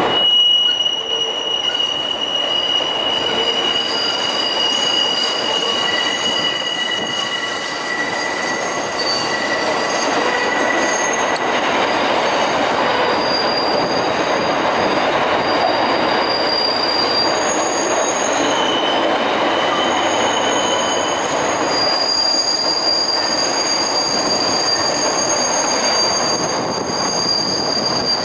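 Pullman-Standard R46 subway train rounding a curve on departure, its steel wheels squealing against the rails over a steady rumble. The squeal is several high tones that start and stop at different times, shifting in pitch as the cars pass through the curve.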